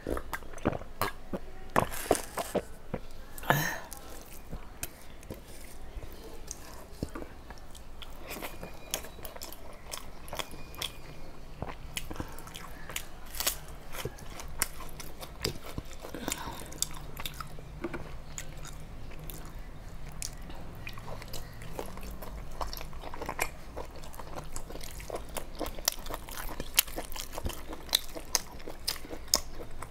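Close-miked mouth sounds of a person eating a rice meal by hand: chewing and crunching of fried food, with many irregular wet clicks and smacks.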